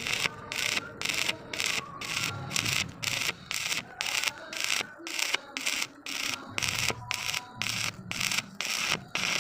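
A hand tool rubbed back and forth over metal in quick, even strokes, about two and a half a second, in the manner of filing or brushing down a weld.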